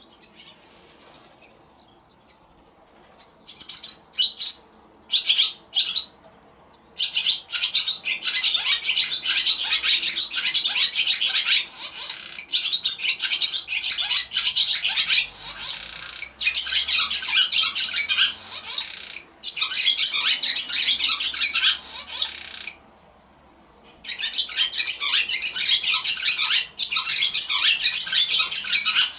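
Barn swallows twittering: a few short bursts, then long runs of rapid chattering song, broken once by a pause of about a second and a half.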